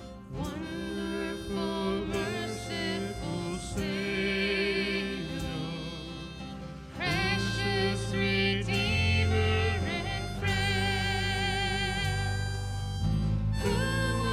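Live worship band playing a slow song with acoustic guitar and harmonica over a low beat, the melody held in long wavering notes.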